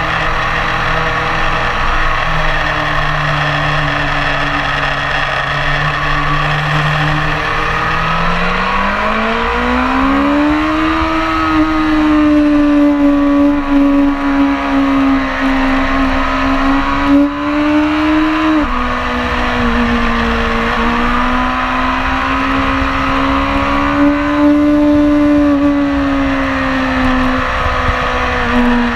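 BMW S1000RR's inline-four engine running hard on track. Its note holds steady, then rises about eight seconds in as the bike accelerates, drops suddenly about halfway through at an upshift, and climbs again before easing near the end.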